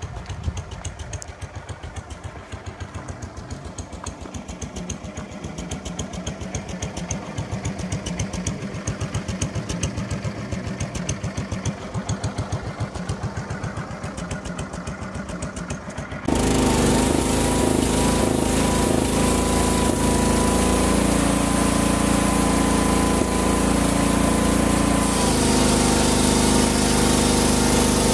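Home-built band sawmill's engine idling with a fast, even beat. About two-thirds of the way through it switches abruptly to the mill running at full speed, the band blade sawing through a log with a steady, dense sound.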